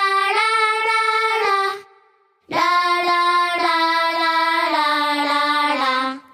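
A high, child-like voice singing a wordless melody in held, stepping notes, in two phrases with a short break about two seconds in.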